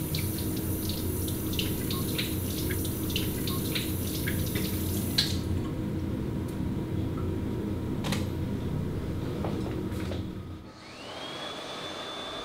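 Water running from a restroom tap into a washbasin, splashing over hands, until it stops about five seconds in. Near the end an electric hand dryer starts up with a rising whine that settles into a steady high tone.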